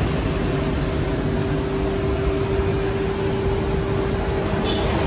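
Steady hum of a running motor at one constant pitch over an even rushing noise.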